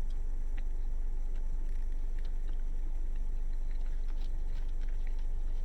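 Someone chewing a mouthful of grilled shrimp, chicken, rice and black beans, with faint scattered clicks over a steady low hum.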